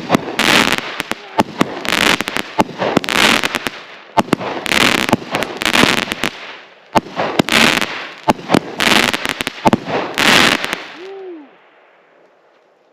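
Consumer firework shots going off in quick succession: a dozen or so sharp reports, each followed by a crackling hiss, dying away near the end.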